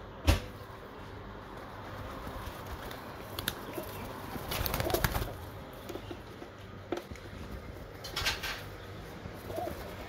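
Feral rock pigeons feeding on rice on a window ledge: a few soft coos and a flurry of wing flaps around the middle, with a sharp tap just after the start and another short flurry near the end.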